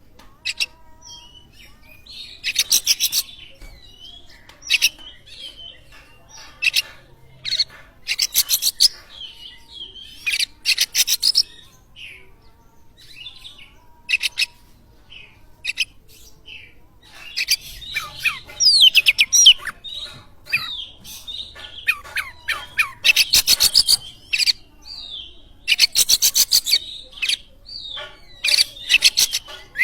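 Oriental magpie-robin (kacer) singing a varied song: loud bursts of rapid stuttering rattles every second or two, mixed with quick whistled slurs and chirps.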